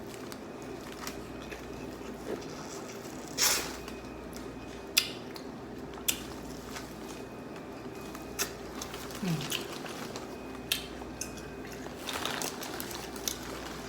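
Wet squishing and smacking of someone eating a saucy seafood boil by hand, with a few short sharp clicks scattered through it.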